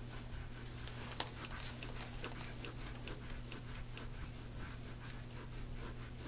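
Handheld scraping tool stroked over oiled skin of the upper back, a quick regular run of short scrapes at about three a second. This is instrument-assisted soft-tissue work on tight, knotted muscle.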